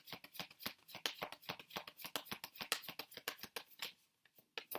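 A deck of tarot cards being shuffled by hand: a quick, irregular run of card clicks that stops for a moment a little after four seconds in, then picks up again.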